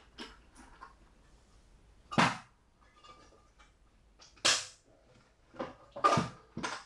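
Several sharp knocks and clacks at irregular intervals, the loudest about two seconds in, as the Makita DML814 tripod work light is handled and set down.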